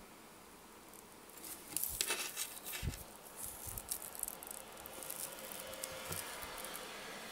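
Rustling and small clicks from handling a wristwatch as it is put on the wrist. The sound starts about a second in and is busiest soon after, with one soft thump. It then settles into fainter rustling.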